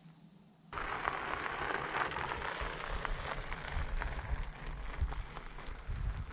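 Fat bike tyres rolling over a gravel trail: a steady crunching, crackling rush of grit under the wide tyres, starting suddenly under a second in.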